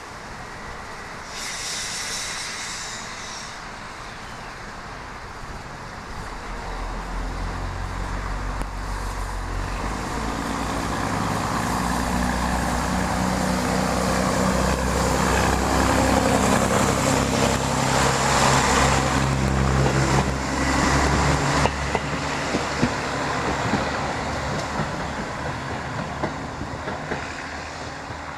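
A Danish Y-train diesel railcar (Ym/Ys 12) pulling away from a station. Its engine note grows steadily louder as it accelerates, peaks, and then eases off, with sharp wheel clicks near the end. A short hiss comes about two seconds in.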